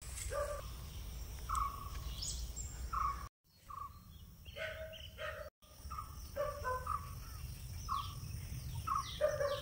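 Birds calling outdoors, with short chirps repeated every second or so and a few quick falling high notes near the end, over a low steady rumble. The sound cuts out twice, briefly.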